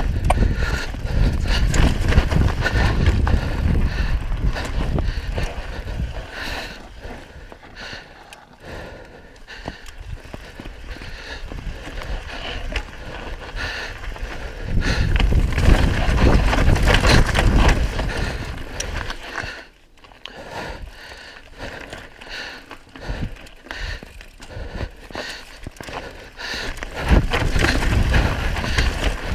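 Mountain bike descending fast over rock and dirt: tyres crunching and the bike rattling with many short knocks over rough ground, under a rush of wind buffeting the camera microphone. The wind rumble swells loud near the start, again about halfway through and near the end, and drops away in between.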